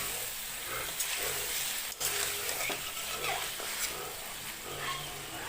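Paneer cubes frying in hot oil in a kadai, giving a steady sizzle, while a spatula gently turns them with occasional light scrapes and one sharper knock about two seconds in.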